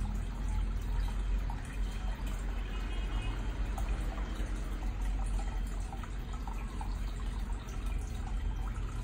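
Aquarium filter running: water steadily trickling and splashing back into the tank, over a constant low hum.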